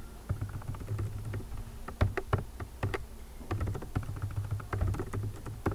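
Typing on a computer keyboard: irregular runs of key clicks with a few louder, sharper key presses.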